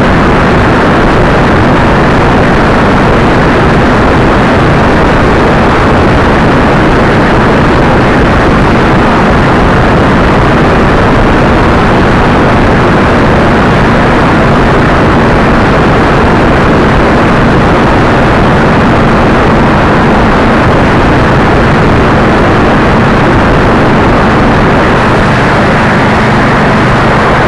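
Motorcycle ridden at highway speed: a loud, steady rush of wind over the microphone, with a low engine drone underneath.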